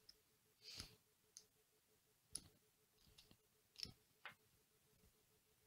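Faint scattered clicks and short scrapes, about six of them, from a hobby knife scraping glue residue off a small plastic RC servo's case while the servo is turned in the fingers, over a faint steady hum.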